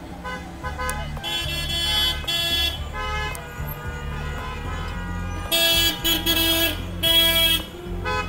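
Car horns honking in support of a roadside rally, with fainter honks early on and two loud, long blasts near the end, over the low rumble of a car.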